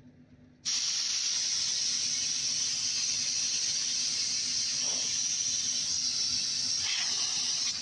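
Compressed air hissing steadily from an air hose into a truck tire's inner tube, starting suddenly about a second in.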